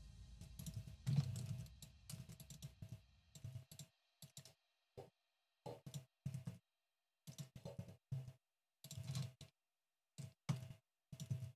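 Computer keyboard keys and mouse buttons clicking in short, irregular bursts, with quiet gaps between them.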